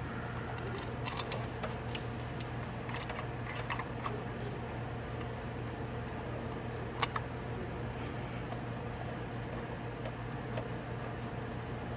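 Scattered light metallic clicks and clinks of a socket wrench and small bolts being handled while the sprocket cover's 8 mm bolts are done up, the loudest single click about seven seconds in. A steady low hum runs underneath.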